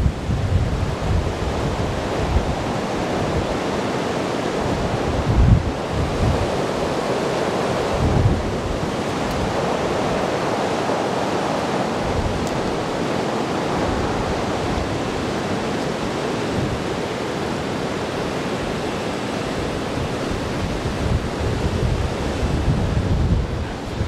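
Storm-force wind rushing steadily over the wash of storm-surge waves and floodwater, with gusts buffeting the microphone about five seconds in, again around eight seconds, and near the end.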